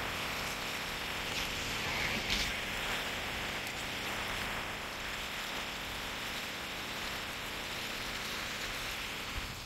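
A steady, even hiss of outdoor noise with no speech.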